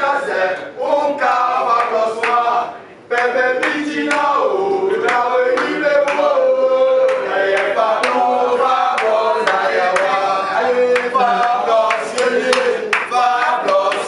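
A crowd of football supporters singing a chant together with hand claps, rising to full volume about three seconds in.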